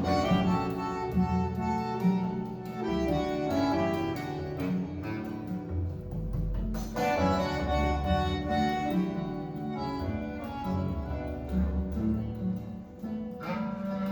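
Recorded instrumental music with a steady bass line, played from vinyl through a pair of Fleetwood Sound Deville loudspeakers.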